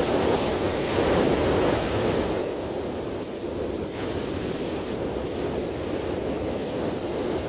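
Surf washing onto a sandy beach, louder for the first two seconds and then easing into a steady wash, with wind on the microphone.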